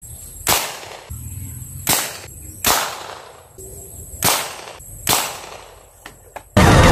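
Shotgun-style homemade alcohol-fired marble gun firing about five sharp shots, each with a brief ringing tail, followed by two faint clicks. Loud music cuts in suddenly just before the end.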